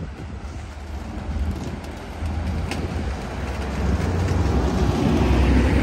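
Amtrak California bilevel passenger cars of a departing train rolling past, a steady low rumble of wheels on rail with a single click about a third of the way through. The rumble grows louder near the end.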